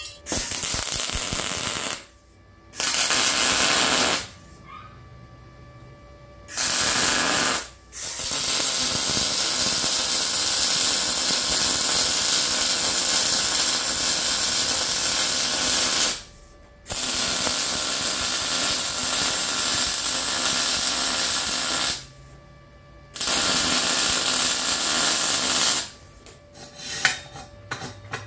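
MIG welding on steel square tubing: six runs of arc noise, each starting and stopping abruptly. Short tacks come in the first few seconds, then longer beads of about eight and five seconds, then a shorter one. A few light metal clicks and knocks come near the end.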